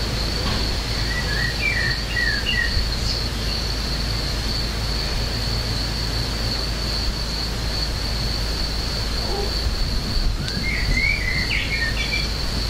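Small birds chirping in two short bursts, about a second in and again near the end, over a steady low rumble and a constant high-pitched whine.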